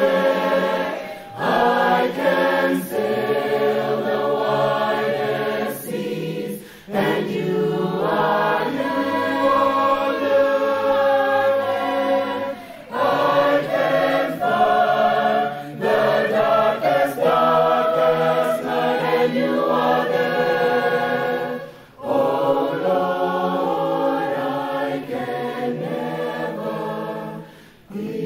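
Large mixed choir of men's and women's voices singing in harmony, in sustained phrases broken by brief pauses every few seconds.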